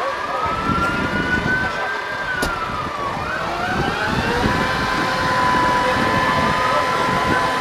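Emergency vehicle siren wailing. The pitch climbs slowly, sinks, then climbs again about three seconds in and holds at one steady note, with crowd chatter underneath.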